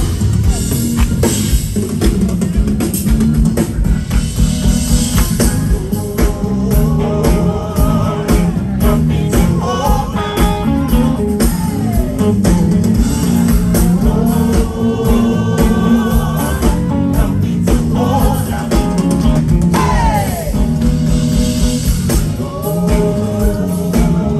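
Live band playing with drum kit, bass and guitar, and a voice singing a melody over it from about a third of the way in.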